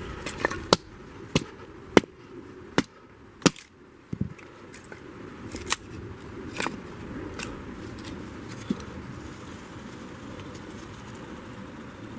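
Batoning firewood: a knife blade set in a crack in a piece of wood is struck on its spine with a wooden baton, giving sharp wooden knocks. About seven hard strikes come in the first four seconds, then fewer, softer knocks.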